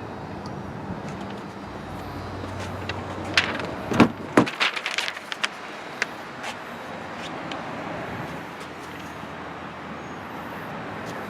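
Steady low hum and outdoor noise, then about four seconds in two heavy thumps half a second apart from a car door being worked, followed by a run of small clicks and rattles; after the thumps the low hum drops away.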